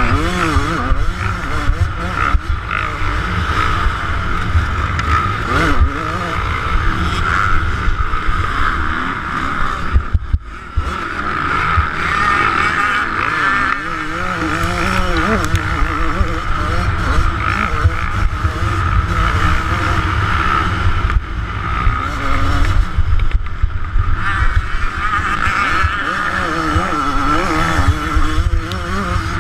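Yamaha YZ125 single-cylinder two-stroke dirt bike engine being ridden hard, its revs rising and falling over and over as the throttle opens and closes, with a low wind rumble on the microphone. About ten seconds in the sound briefly drops away.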